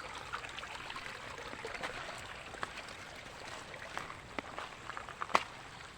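Rain-swollen stream flowing steadily, with scattered faint clicks and one sharp click a little after five seconds in.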